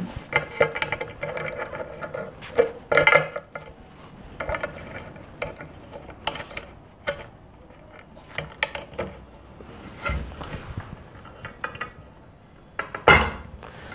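Hand-held tile opener worked on a scored glass tile: repeated small metal clicks and scrapes as its T-handle is turned, then a sharp crack near the end as the tile snaps along the score line.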